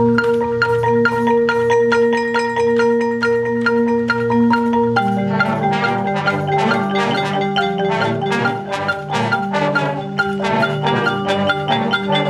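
Marching band music led by the front ensemble's marimbas, playing fast repeated mallet notes over held chords; the chord changes about five seconds in.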